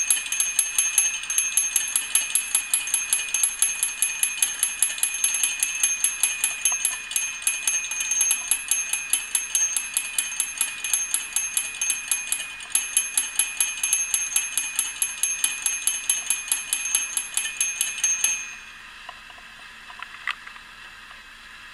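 Warning bell of an antique clockwork roasting spit ringing in rapid, even strokes, then cutting off suddenly near the end. This bell is the signal that the spring has run down and the spit must be wound up again.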